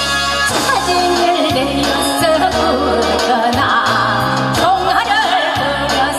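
A woman sings a Korean folk song through a microphone and PA over an instrumental backing track. Her voice comes in about a second in, with a wavering vibrato on held notes.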